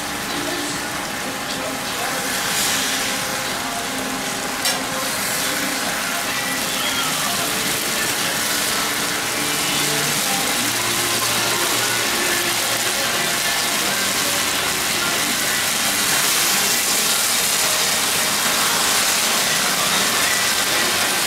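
Water and oil sizzling and bubbling hard on a flat griddle around a batch of potstickers as they steam-fry, a steady hiss that grows a little louder in the last few seconds. A single sharp tap sounds about five seconds in.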